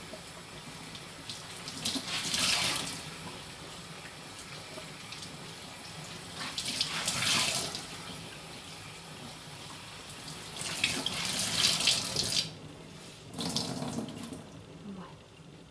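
Kitchen tap running steadily into the sink, with louder splashing surges several times as a cleaning cloth is rinsed under the stream.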